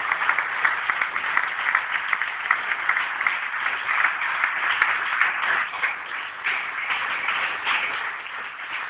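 Large audience applauding, a dense patter of many hands clapping that thins out and fades near the end.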